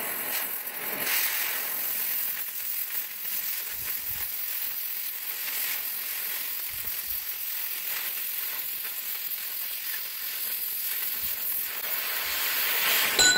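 Oxy-fuel cutting torch cutting half-inch steel plate: a steady hissing sizzle of the cutting jet burning through the steel. It ends with a brief sharp pop near the end.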